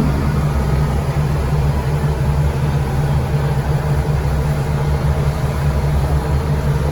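Passenger boat's engines running steadily, a loud low hum with rushing noise, heard on board.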